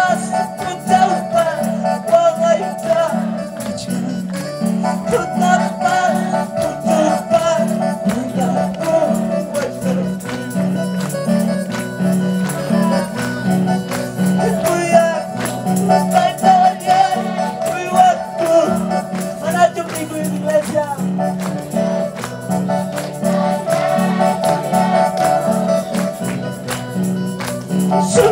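Live worship band music with a steady bass beat, tambourine and singing, with the congregation clapping along.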